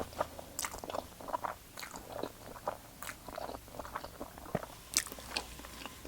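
A person chewing food close to the microphone, with irregular small crunches, clicks and wet mouth sounds.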